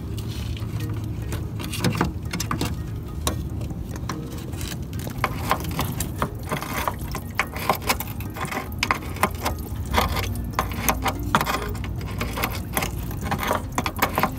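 Socket ratchet clicking in quick runs while working a bolt at the radiator, with small metal clinks of the tool, over a steady low hum.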